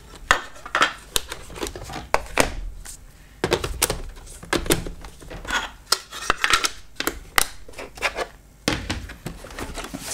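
Irregular plastic clicks, clacks and knocks from handling a laptop's battery pack and casing, with the laptop then lifted and turned over.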